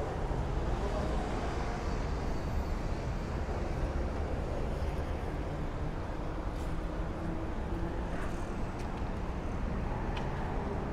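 Steady road traffic noise, a continuous low rumble of passing cars.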